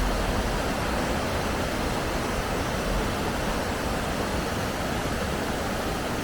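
Fast-flowing river water rushing steadily, a forceful, noisy flow like a waterfall; the walker suspects the force comes from a hydro scheme on the river.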